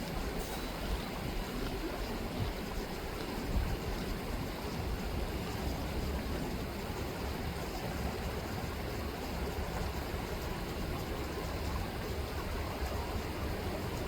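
River water rippling and flowing steadily.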